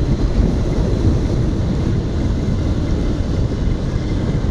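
Royal Enfield Continental GT 650 parallel-twin with an aftermarket SC-Project exhaust running steadily under way, mixed with wind rushing over the microphone.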